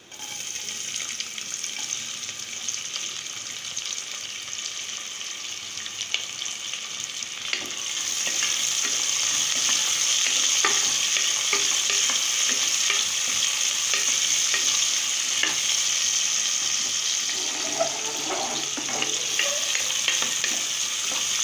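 Sliced onions frying in hot oil and ghee in a metal pressure cooker. The sizzle starts suddenly as they go in, gets louder about eight seconds in, and is broken by short scrapes and taps of the stirring utensil against the pot.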